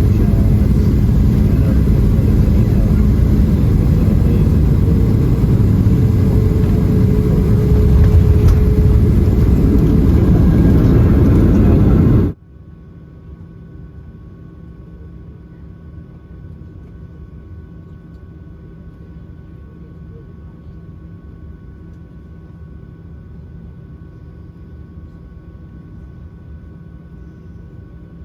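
Boeing 737-700 jet engines and airflow heard as a loud, steady rumble, swelling a little about eight seconds in. It cuts off abruptly at an edit about twelve seconds in, giving way to a much quieter steady hum with faint steady tones.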